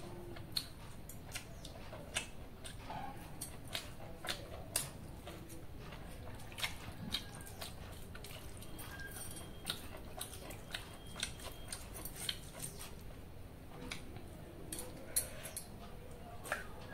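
Eating by hand from steel bowls: fingers working through watery fermented rice and picking at chicken curry, giving scattered small clicks and wet sounds, with chewing.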